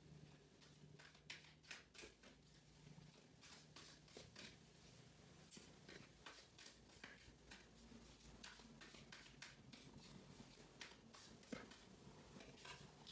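Faint hand shuffling of a tarot deck: many short, light clicks and slaps as the cards slide over and drop onto one another, with a faint low hum underneath.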